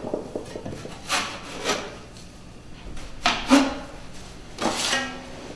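Drywall knife scraping wet joint compound off around newly set bullnose corner bead, in several short strokes about a second apart.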